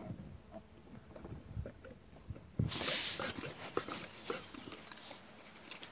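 Saint Bernard sniffing at close range, with a sudden burst of loud breathy sniffs about three seconds in and shorter sniffs after, over small knocks and rustles.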